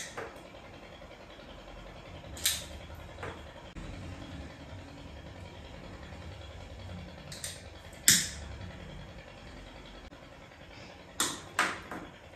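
Quiet room tone with a few scattered short clicks and taps from small objects being handled at a table, including a louder tap about two-thirds of the way in and a quick run of three near the end.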